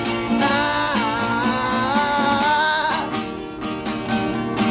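A man sings one long held note that wavers and bends in pitch over steadily strummed acoustic guitar. The voice stops about three seconds in while the strumming carries on.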